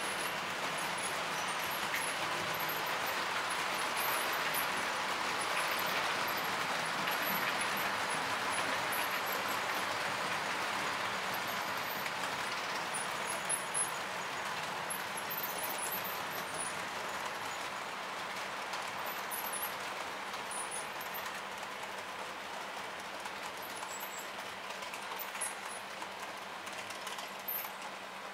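Several H0-scale model trains running at once on a layout: a steady rolling hum of small electric motors and wheels on the track, with scattered light clicks, slowly fading over the second half.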